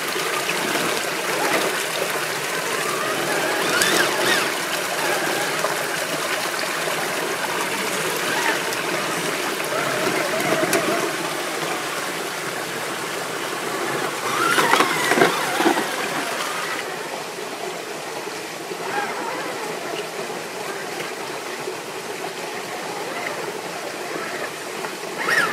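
Mountain stream rushing over rocks, a steady wash of water, with brief louder passages about four seconds in and again around fifteen seconds in.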